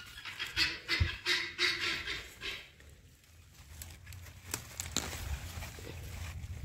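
Birds chattering in a quick run of calls for the first two seconds or so. Then come leaves rustling and a few small snaps as a large radish is grasped and pulled from the soil.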